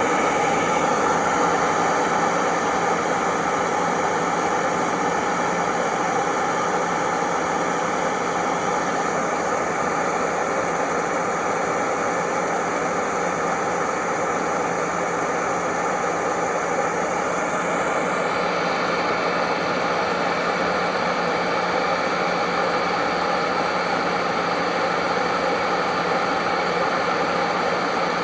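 Hoover Model 28 vacuum cleaner motor running steadily with a loud whine and rushing air, just reaching full speed at the start. The drive belt has been removed, so the brushroll is not turning.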